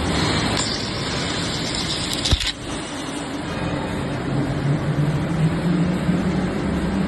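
A steady engine-like running noise with a low hum whose pitch lifts slightly in the second half, and one sharp crack a little over two seconds in.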